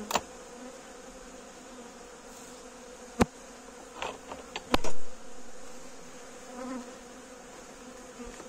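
Honey bees humming steadily from an open hive, with a few sharp wooden knocks as a frame of comb is handled over the hive, the loudest about five seconds in.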